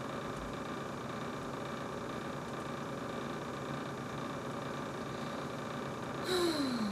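A brand new GE refrigerator running, a steady whirring hum with a few steady tones in it. Near the end a short tone slides down in pitch, with a brief click.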